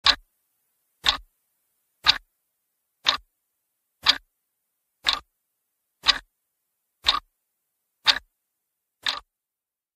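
Clock ticking sound effect: ten even ticks, one each second, marking time passing while waiting.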